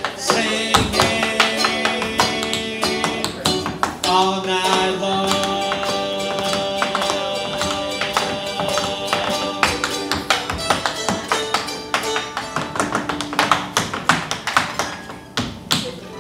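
Tap shoes clicking in quick rhythmic patterns on a hard floor over a strummed guitar song. Near the end the guitar dies away and the taps carry on alone, more quietly.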